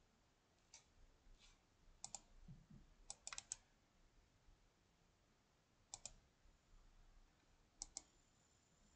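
Faint clicks at a computer over near-silent room tone: scattered single and double clicks, with a quick run of about four a little past three seconds in.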